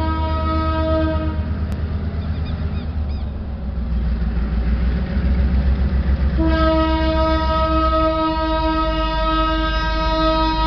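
An EMD G12 diesel-electric locomotive sounding its horn as it approaches, over the low rumble of its engine and train. The horn note cuts off about a second and a half in, leaving only the rumble, then sounds again, long and steady, from about six and a half seconds in.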